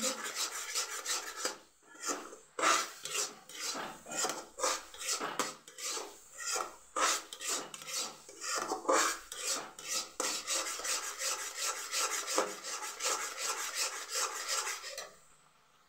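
A utensil scraping rhythmically around a pan while thick cashew paste is stirred continuously in sugar syrup, about two strokes a second. The strokes stop near the end.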